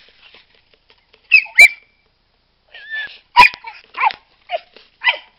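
A dog barking in short, sharp barks, about eight of them in quick, uneven succession beginning a second in.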